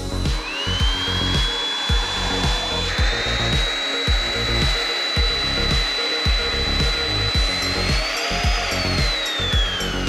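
Corvan K6 cordless stick vacuum's motor starting with a rising whine, then running with a steady high whine while its funnel nozzle sucks up and holds a water-filled balloon; near the end the whine falls in pitch as the motor winds down. Background music with a steady beat plays underneath.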